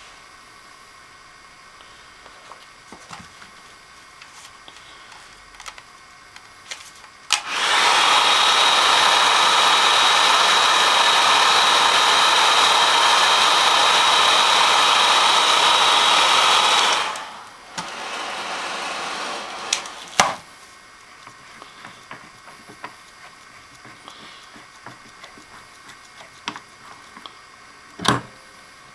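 Hot-air blower running for about ten seconds, a steady rushing with a constant high whine, used to warm the flywheel so it can be pulled. It then runs more quietly for a couple of seconds, and a few sharp clicks of tools follow.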